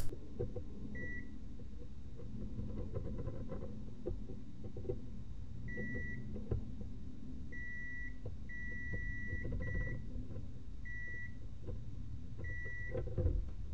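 Multimeter continuity tester beeping as its probes touch pairs of pins on a SATA connector: seven separate high tones, some short and some held for up to about a second. Each beep signals that the two probed pins are connected.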